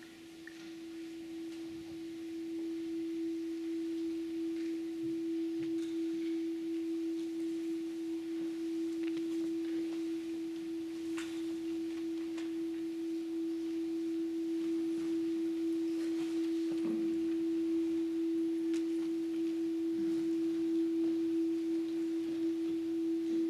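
A single pure electronic sine tone, held steady as the opening of a minimalist electronic music piece. It swells in over the first few seconds. Faint scattered clicks lie under it.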